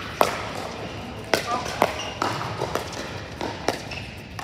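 Pickleball rally: sharp, hollow pops of paddles striking a plastic pickleball and the ball bouncing on the hard court, several in a row with the loudest about a quarter second in.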